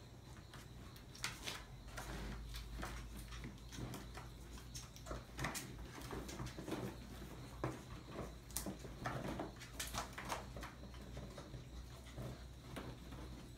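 Maltese puppies playing with a foil balloon and its ribbon: a scatter of soft rustles and light taps, with a few small puppy sounds near the middle.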